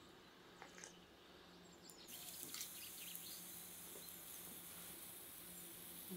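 Faint bird chirps. From about two seconds in, a faint, steady high hiss: mushroom caps filled with egg sizzling on a hot iron stove top.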